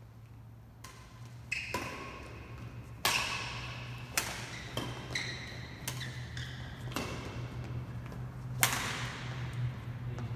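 Badminton rackets striking the shuttlecock back and forth in a doubles rally: sharp cracks about once a second, each ringing in the hall's echo, the hardest about three and nine seconds in. Short squeaks of shoes on the court come between the shots.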